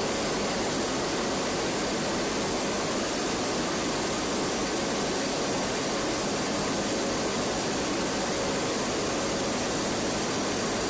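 Steady cabin noise inside a WC-130J Hercules turboprop in flight: an even, unbroken rush of engines, propellers and airflow, with a faint steady tone running through it.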